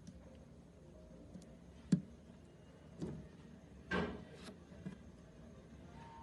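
Transistor leads being pushed into a plastic breadboard and parts being handled: a few light, sharp clicks and taps about a second apart, with a longer scraping click about four seconds in.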